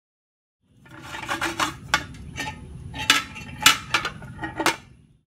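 Metal face plate and straightedge being handled and marked out on a workbench: a run of scrapes and metallic clinks, with several sharp knocks, the loudest a little past halfway.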